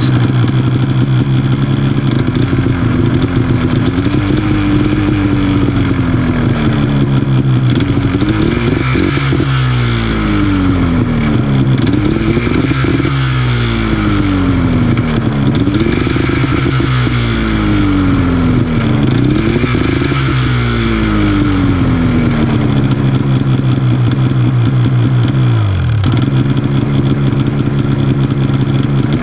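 Arctic Cat M8000's two-stroke twin running on the stand, revved with the drive belt off so the primary clutch can be checked for wobble. It idles at first. From about a third of the way in it is blipped over and over, the revs rising and falling every two to three seconds, then it settles back to idle near the end.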